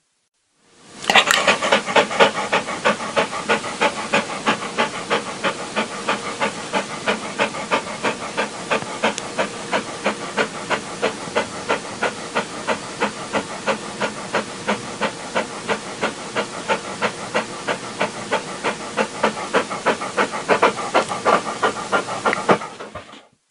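Large dog panting rapidly with its mouth open, an even run of breathy pants at about three to four a second. The panting fades in about a second in and fades out near the end.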